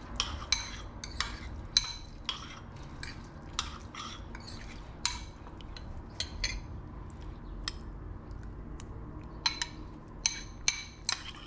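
A metal spoon stirring olive tapenade in a glass bowl, clinking irregularly against the glass with short ringing ticks, over a low steady hum.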